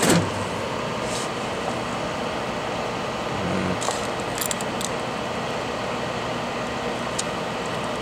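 Steady rushing hiss of a hot air rework station's blower left running, with a few light clicks around the middle and near the end.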